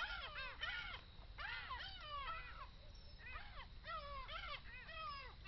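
Animals calling: a steady stream of short, high, rising-and-falling cries, several overlapping at once.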